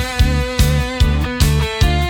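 Background music: a steady beat of about two and a half strikes a second under sustained, stepping melodic notes.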